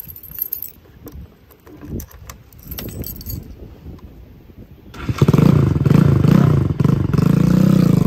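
Keys jingling as the key goes into the ignition, then about five seconds in a Bajaj Pulsar NS200's single-cylinder engine starts and runs loudly, its note wobbling slightly. It is loud because the silencer has been knocked and dented.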